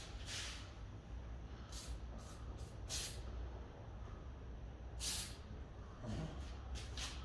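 Aerosol spray paint can giving a series of short hissing bursts, the strongest about three seconds in and about five seconds in.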